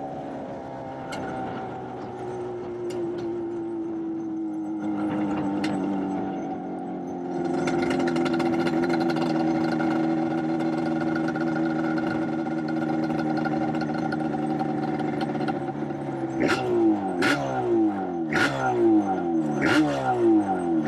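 Yamaha Banshee's big-bore 421cc twin-cylinder two-stroke engine running. Its pitch slides slowly down, then holds steady and a little louder. Over the last few seconds it is revved in a quick series of sharp throttle blips, each falling away before the next.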